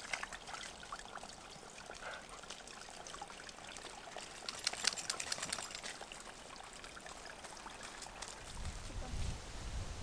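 Water trickling and splashing as a dog wades through a small, shallow woodland stream, with a dense run of splashy ticks around the middle. A low rumble comes in near the end.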